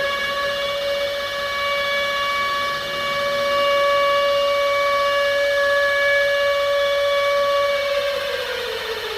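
Civil-defence air-raid siren sounding an attack warning: its wail holds one steady pitch for most of the time, then begins to wind down and fall in pitch about a second before the end.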